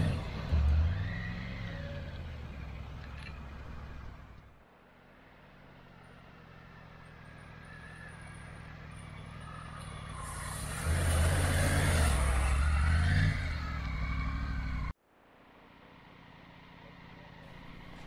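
Triumph Tiger 900 three-cylinder motorcycle engine revving as the bike rides through a shallow creek, its tyres throwing up splashing water. The loudest passes come right at the start and again about eleven to thirteen seconds in. In between, the engine runs more quietly and grows steadily louder as the bike approaches, with two abrupt breaks in the sound.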